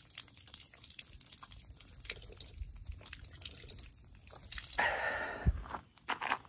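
Drinking from a trailside water spigot: small drips, trickles and sips of water with scattered little clicks. A brief louder rush comes about five seconds in.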